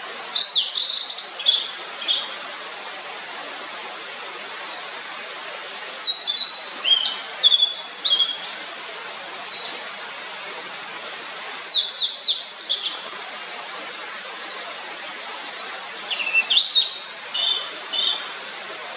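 Blue-and-white flycatcher singing: four phrases of clear whistled notes, most of them falling in pitch, a few seconds apart, over a steady background hiss.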